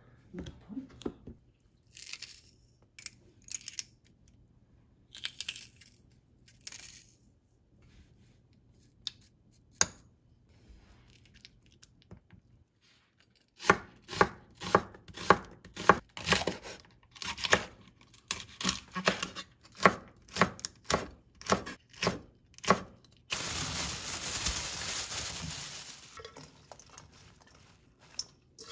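A spoon stirring and scraping thick chilli-paste seasoning in a glass bowl, faint and sparse. Then a kitchen knife chopping onion on a bamboo cutting board, a run of quick chops about two a second. Near the end comes a dense hiss lasting about three seconds.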